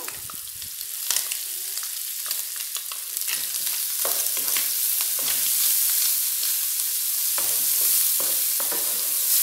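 Diced calabresa sausage, bacon, onion and garlic sizzling in olive oil in an electric skillet, the sizzle building over the first few seconds. A wooden spoon scrapes and knocks against the nonstick pan as the mixture is stirred.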